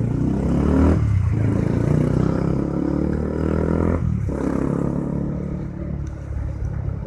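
Honda CB150R's single-cylinder engine revving as the motorcycle pulls away, its pitch climbing and breaking off briefly about a second in and again about four seconds in.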